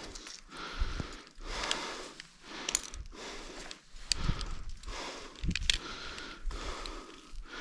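A climber's heavy, fast breathing, about one breath each second, with a few sharp clicks in the middle.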